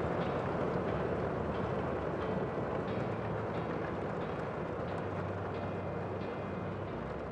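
Steady rushing outdoor ambience with faint short high ticks or chirps now and then, slowly fading.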